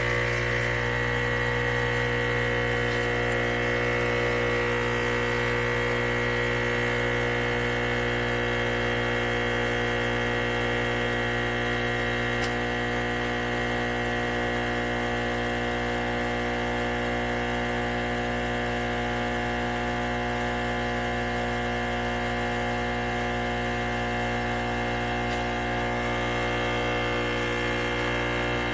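ChefWave Káva espresso machine's pump running while it brews a capsule, a loud, steady buzzing hum that stays even throughout.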